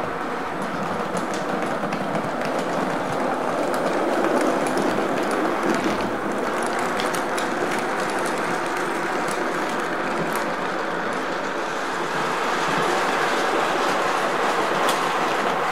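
OO-gauge model diesel locomotive and empty timber wagons running along the layout's track: a steady rumble of wheels and motor, with faint irregular clicks as the wheels pass over the track.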